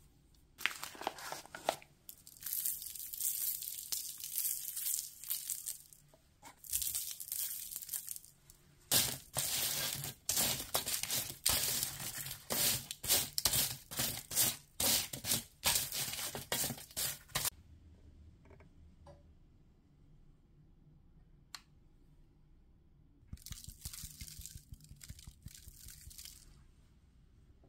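Baking parchment crinkling and rustling as baked potato wedges are shifted and lifted off the tray with chopsticks, in a long run of quick scraping, crackling strokes that stops about two-thirds of the way through. A single click follows, then a shorter burst of paper rustling near the end.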